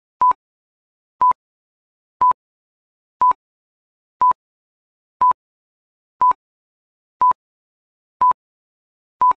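Quiz countdown timer beeping: ten short electronic beeps of one pitch, one each second, with silence between, counting off the time left to answer.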